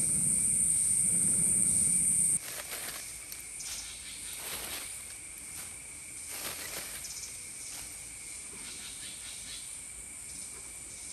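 A hand-cranked spinning blower runs with a steady rushing of air and a low rumble, feeding air into a clay smelting furnace, then stops abruptly about two seconds in. After it, insects keep up a steady high buzzing while lumps of charcoal clink and rattle now and then as they are scooped up and tipped into the furnace.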